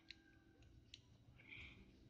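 Near silence with a few faint clicks and a soft brief scrape: a spoon working against the container as slime is stirred.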